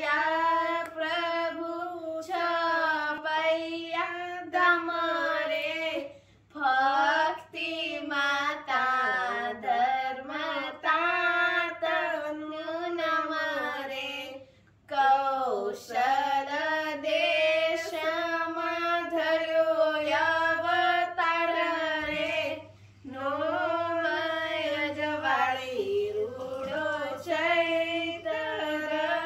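A girl singing a Swaminarayan devotional kirtan solo, without accompaniment, in long melodic phrases broken by short breaths about six seconds in, near the middle and about three-quarters through.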